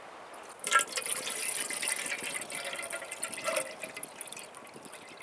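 Water being poured into a metal army mess tin. It starts suddenly about a second in and tails off after about three seconds.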